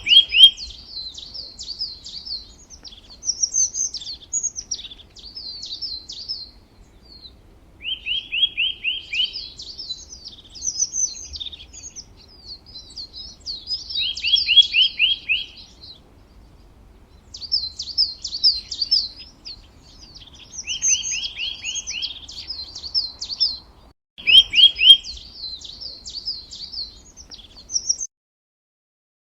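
A songbird singing the same song phrase over and over, about five times with short pauses between. Each phrase opens with a quick run of like notes and goes on into a higher, faster twittering.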